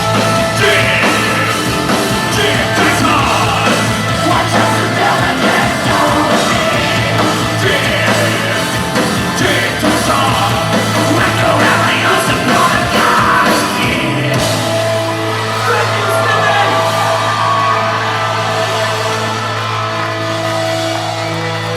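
Live heavy metal band playing loudly in a hall, with drums, guitars and sung, shouted vocals. About two-thirds of the way through the drumming stops and held chords ring on.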